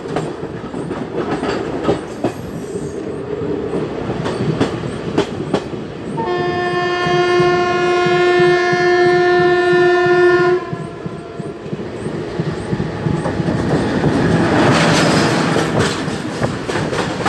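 Express train coach wheels clicking over rail joints, heard from the open coach door. About six seconds in, an electric locomotive's horn sounds one long steady blast of about four seconds. Near the end an oncoming WAG-7-hauled container train passes close alongside with a swelling rush of noise.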